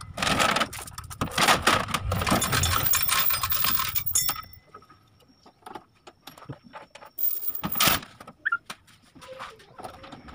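Loose metal parts clinking and rattling, steady and dense for the first half, then a few scattered clicks and a short loud clatter late on.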